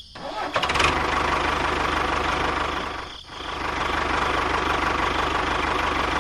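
Small motor running steadily with a rapid, even pulsing, dipping briefly about three seconds in.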